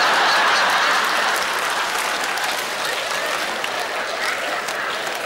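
Audience applauding, loudest at the start and easing off slightly.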